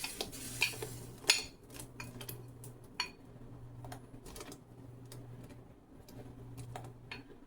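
A spoon clinking and knocking against a metal pot while gnocchi are stirred in boiling water: scattered sharp clinks, the loudest about a second in, over a low steady hum.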